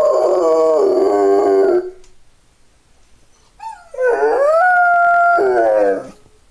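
Rottweiler howling: a long, wavering howl that stops about two seconds in, a short whimper after a pause, then a second howl that rises, holds one steady note and breaks into a wavering tail.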